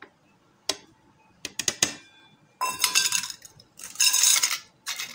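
A steel plate and spoon clinking and scraping as salt and chilli spices are tipped off it into a food processor bowl of soaked chana dal: a few light clinks in the first two seconds, then two longer scrapes around three and four seconds in.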